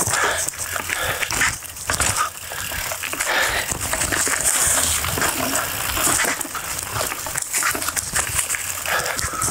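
Mountain bike on Maxxis Minion DHF tyres rolling fast over a dry, leaf-covered dirt trail: leaves crackling under the tyres, with constant small clicks and rattles from the bike over bumps.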